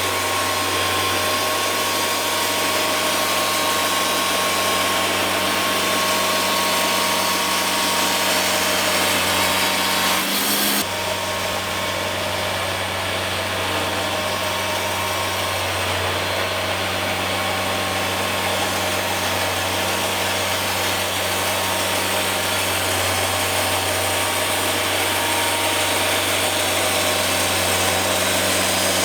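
Wood-Mizer portable band sawmill running steadily with a constant low drone. The sound shifts abruptly about ten seconds in.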